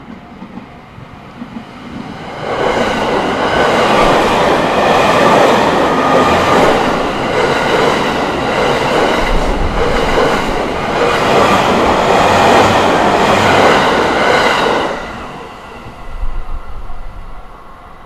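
Train on the JR Tokaido Main Line passing the level crossing close by, its wheels clacking in a steady rhythm over the rails. It comes up about two seconds in and dies away after about fifteen seconds.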